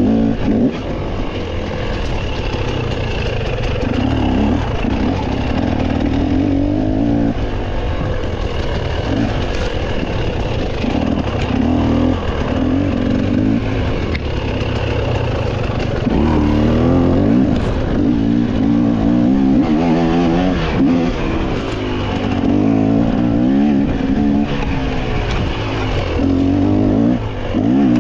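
Off-road racing motorcycle's engine revving up and falling back again and again as the throttle is worked through the gears.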